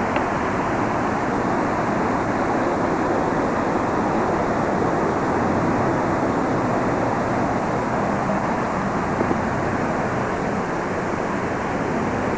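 Creek water rushing over rocks: a steady, even rushing noise.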